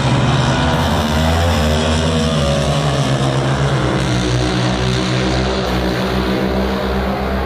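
Drag racing car engines running hard down the strip: a loud, steady engine drone whose pitch falls over the first couple of seconds and then holds level.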